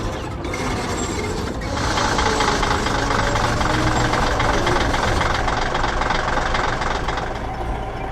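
Heavy machinery engine running with a rapid rattle and a low rumble, growing louder about two seconds in.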